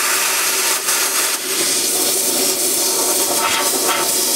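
Compressed-air blow gun blasting against a rusty vehicle frame, a loud, steady hiss of air blowing off loose paint and rust.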